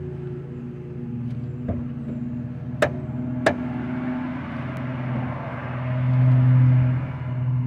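Exhaust of a 1999 Dodge Stratus fitted with the stock catalytic converter and a Cherry Bomb muffler, the engine running with a steady low drone that swells louder about six seconds in. Two sharp clicks come about three seconds in.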